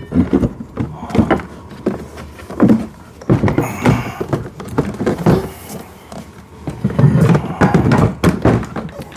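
Parts of a kids' electric ride-on car being handled and fitted during assembly: irregular knocks, clunks and rattles in several bunches.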